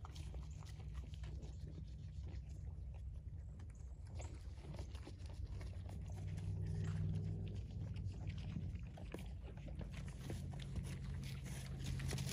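Horses munching sweet feed, with many small crunching ticks, over a low steady hum.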